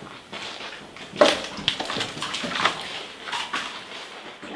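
Footsteps splashing through shallow water on a flooded mine tunnel floor, uneven steps with a sharper splash about a second in.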